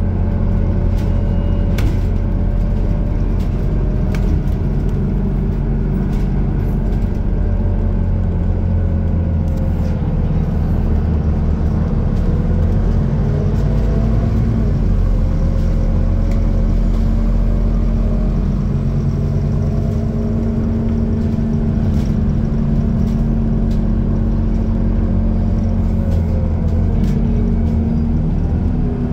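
Scania articulated city bus driving, heard from inside the passenger cabin: a steady low engine drone whose pitch rises and falls several times as the bus speeds up and slows, with scattered short clicks and rattles.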